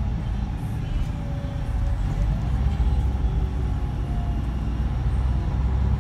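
Scania K124 coach's straight-six diesel engine and road noise heard from inside the passenger cabin: a steady low rumble with faint thin whines above it.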